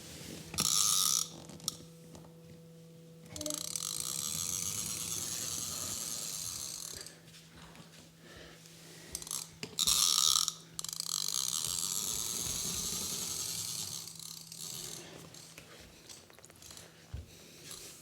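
A small geared toy mechanism, twice: a short, loud ratcheting burst, then about three to four seconds of steady high whirring as the gears run down.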